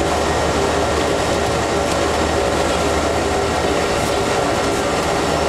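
Steady, loud engine drone with a constant low hum and several steady higher tones, heard from inside a moving vehicle.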